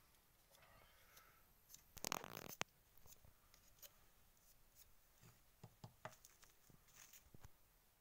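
Faint scraping and small clicks of a steel knife blade shaving the tip of a dry reed pen (qalam), thinning the nib. There is a louder cluster of scrapes about two seconds in.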